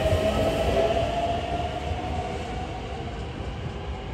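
Hankyu Railway electric commuter train running past the platform: a steady motor whine over wheel and rail rumble, fading gradually as the train moves away.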